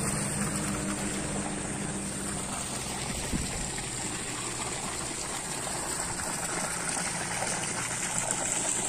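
Steady rush of water from a deep-well submersible pump's outlet. A low steady hum runs under it for the first three seconds or so, then fades out.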